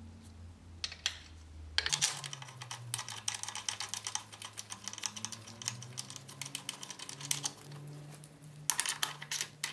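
Ratchet wrench clicking rapidly as it runs a bolt into the passenger foot peg bracket, starting about two seconds in and going on in quick runs of clicks.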